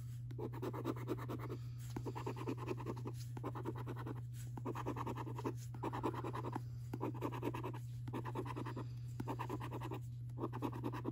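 A coin scraping the scratch-off coating from a paper lottery scratchcard, in a run of short scratching strokes with brief pauses between them.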